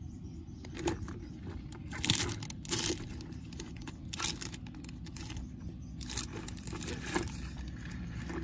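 Plastic bag crinkling and rustling, with a stick scraping against a plastic tub, in a series of short bursts that are loudest about two seconds in.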